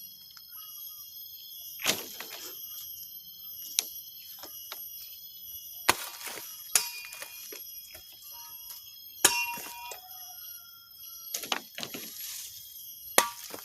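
Golok (machete) blows: about six sharp metallic strikes at irregular intervals of one to four seconds, each ringing briefly.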